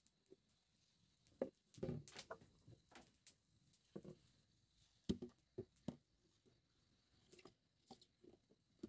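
Near silence broken by faint, irregular taps, knocks and a soft rustle: small handling sounds of someone moving about and handling things on a bamboo floor and platform.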